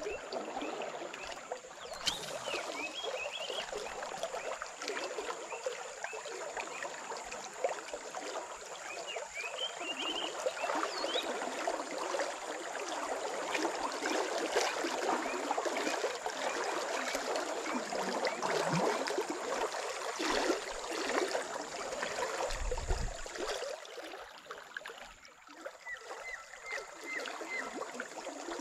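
Fast-flowing river current rushing and churning past the bank in a steady wash, with a few short high chirps over it.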